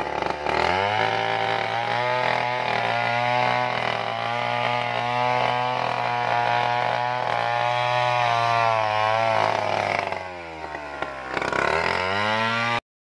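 Stihl 070 two-stroke chainsaw revving up from idle and running at high speed through a log, cutting it into slabs. About ten seconds in it drops back to idle, then revs up again, and the sound cuts off suddenly near the end.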